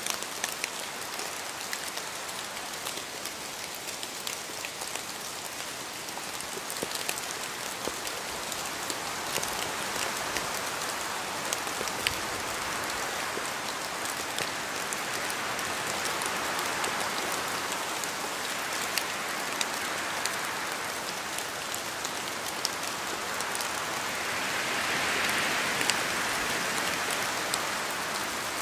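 Steady rain falling, with many individual drops pattering on a surface and a gentle swell in intensity now and then.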